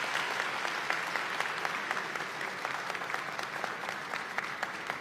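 Arena crowd clapping steadily, the applause slowly fading.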